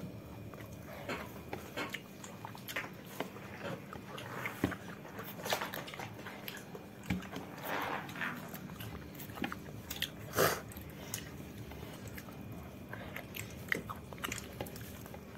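A person eating by hand close to the microphone: chewing and biting food, with scattered small clicks and smacks and one louder click about ten seconds in.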